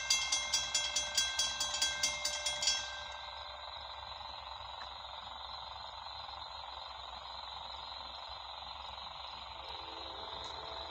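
Railroad crossing warning bell ringing rapidly, about four strikes a second, while the crossing gates come down; it stops about three seconds in, leaving a steady background hiss.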